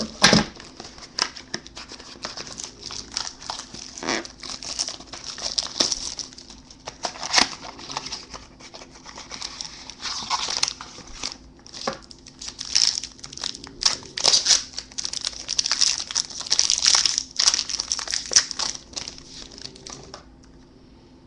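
Trading-card pack packaging being opened by hand: wrappers crinkling and tearing in irregular crackles that stop about a second before the end.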